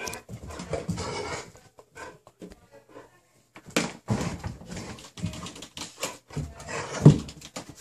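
A dog making a series of short, irregular sounds, the loudest about seven seconds in.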